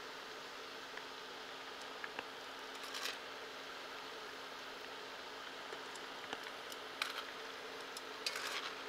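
Steady sizzle of potato-flake-coated cube steak bites deep-frying in vegetable oil in a cast iron Dutch oven, with a few clicks of metal tongs against the pot as the pieces are turned.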